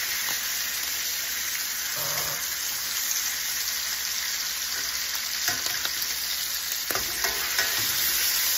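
Chicken thighs sizzling steadily in hot butter and olive oil in a stainless steel pan as they are turned over with metal tongs. A few brief scrapes and clinks of the tongs against the pan sound over the frying hiss.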